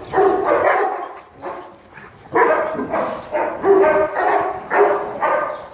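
Several dogs barking and yipping in quick short bursts as they play-fight together, a mock pack fight rather than real aggression. The calls pause briefly about a second and a half in, then pick up again.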